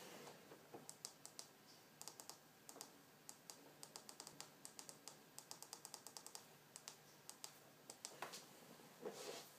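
Plastic keypad buttons on a Hanover Displays DG3 sign controller being pressed, short sharp clicks one at a time and in quick runs of several a second as a code is keyed in. A brief rustle near the end.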